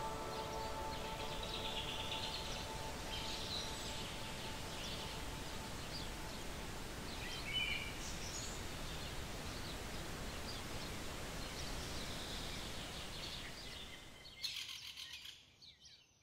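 Wild birds chirping and calling over a steady outdoor background hiss, with a held music chord dying away in the first few seconds. The sound fades out near the end.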